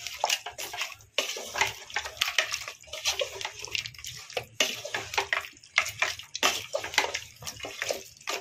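Wooden spatula stirring beef ribs through thick, wet masala in a pressure cooker pot, in repeated, irregular wet strokes.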